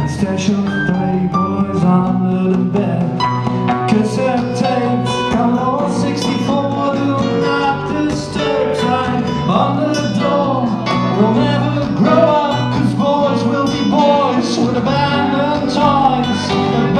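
Live band music: strummed acoustic guitar with a second guitar, keyboard and drums keeping a steady beat, and a man singing over them in the second half.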